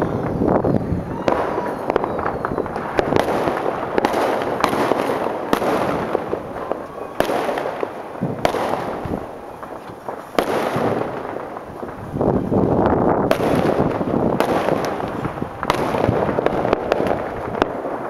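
Aerial fireworks shells bursting in quick succession: many sharp bangs, often overlapping, with reverberation carrying between them.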